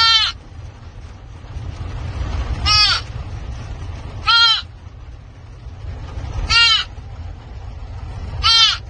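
An animal calling five times, short calls that rise and fall in pitch, about every two seconds, over a steady low rumble.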